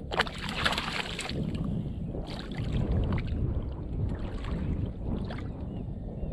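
Water splashing as a hooked fish thrashes at the surface beside a kayak: one strong splash lasting about a second at the start, then several shorter splashes. Under it runs a steady low wind rumble on the microphone.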